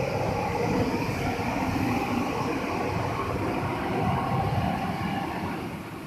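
Vertical flat-glass washing machine running: a steady mechanical rumble and clatter from its conveyor and motors, which gets quieter near the end.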